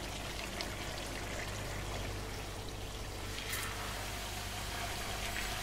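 Thinly sliced potatoes frying in plenty of olive oil in a pan: a steady sizzle.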